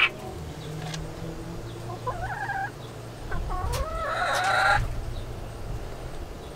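Chickens calling: a short, wavering call about two seconds in, then a longer call that rises in pitch.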